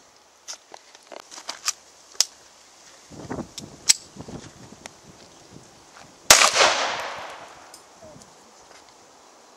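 A string of light clicks and knocks as a pistol is handled, then one loud handgun shot about six seconds in that rings out and dies away over more than a second.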